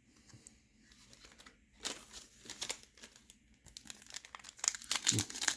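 Foil trading-card pack wrapper crinkling as it is torn open and handled. The crackles are sparse at first and get busier over the last couple of seconds.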